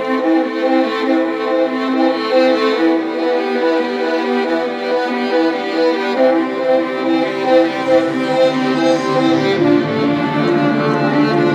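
Music led by bowed strings, violin playing a steady run of evenly paced notes, with lower strings filling in from about seven seconds in.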